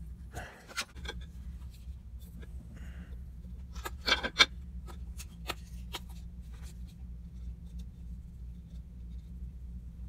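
Small clicks, taps and scrapes of a soldering iron and solder wire being worked against battery terminals, over a steady low hum; the sharpest tap comes about four seconds in.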